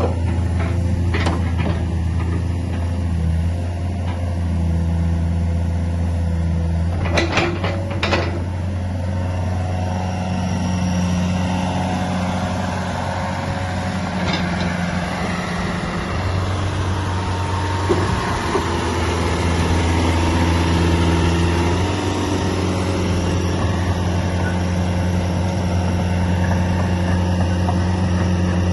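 Kubota KX151 mini excavator's four-cylinder Kubota diesel engine running steadily, with a few sharp knocks, two close together about seven seconds in.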